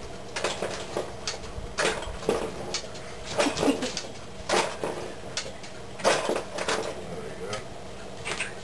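Irregular clicks, knocks and short scrapes, about a dozen spread unevenly, as a container of mushrooms is opened by hand.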